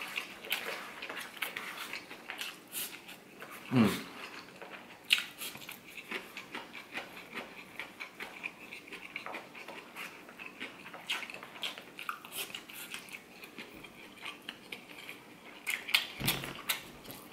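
Eating from a foil takeaway tray: a metal fork clicking and scraping against the aluminium tray, with chewing. About four seconds in, one short, loud vocal sound falls steeply in pitch.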